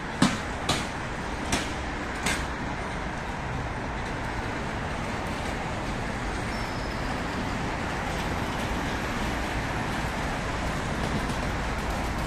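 Steady city road traffic noise. In the first couple of seconds a few sharp knocks sound, spaced farther apart and fainter each time.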